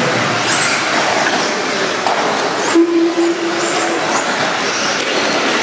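Several 1/10-scale electric off-road buggies with modified-class brushless motors racing together, a steady din of high motor whine rising and falling as they accelerate and brake. A steady low tone lasts about a second midway.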